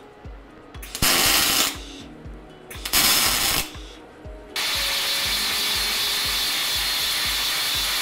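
Two short MIG welding tacks, each crackling for under a second, then a DeWalt angle grinder starting suddenly about halfway through and grinding steel steadily. Background music with a steady beat runs underneath.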